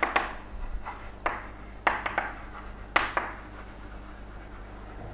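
Writing strokes: four quick scratching strokes in the first three seconds, then only a low steady hum.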